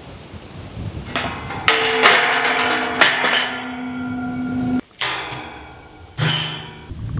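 Metal clanging: about six hard strikes on metal, each leaving a ringing tone that dies away over a second or two.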